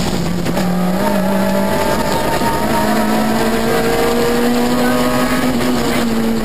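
Peugeot 106 XSi rally car's engine heard from inside the cabin, running hard at speed on a stage. The revs dip briefly near the start, then climb slowly and steadily.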